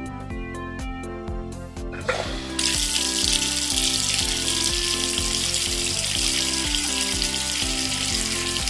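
Water running from a toy kitchen faucet and splashing over water beads in a plastic colander: a steady hiss that starts about two and a half seconds in, just after a short rising sweep, over background music with a steady beat.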